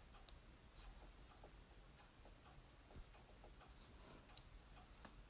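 Near silence with faint, irregular clicks of small scissors snipping through felted wool.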